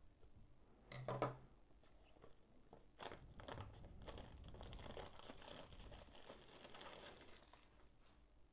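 Clear plastic shrink wrap on a small cardboard box being slit with a pocket knife: a short sharp rip about a second in, then several seconds of crinkling and tearing as the film is peeled off and crumpled.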